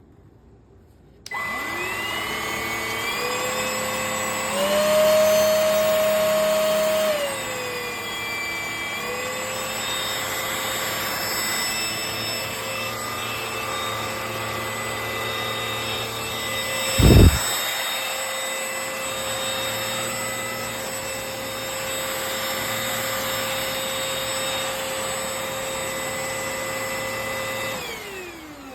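Cordless stick vacuum cleaner switched on about a second in, its motor whine rising to speed. It steps up to a higher, louder speed for a couple of seconds, then drops back and runs steadily. There is one brief loud low thump partway through, and it is switched off near the end, its whine falling away.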